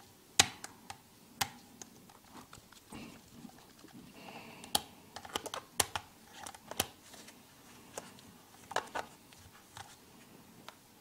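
Irregular small clicks and taps of a precision screwdriver and gloved hands on the plastic body and screws of a Panasonic HC-V180 camcorder being taken apart.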